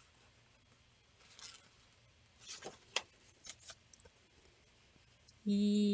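Faint rustles and light taps of a board book's stiff pages being handled and turned. Near the end, a woman hums one steady, held note.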